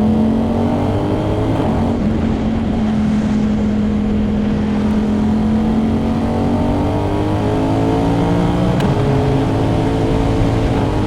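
Ducati Hypermotard V2's V-twin engine through a titanium full exhaust system with inconel headers, pulling under way. The revs climb slowly and drop at a gear change about two seconds in, climb again, and drop once more near the end.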